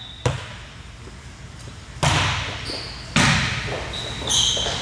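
Volleyball hits echoing in a gymnasium: a sharp smack about a quarter-second in that rings off into the hall, then more hits and hall noise from about two seconds on, with a few short high squeaks near the end, typical of sneakers on a gym floor.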